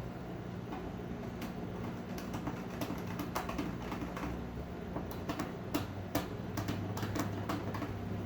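Hand scribe scratching through the paint of a gas tank around a fuel pump's mounting holes: a run of irregular sharp scrapes and clicks, starting about a second and a half in.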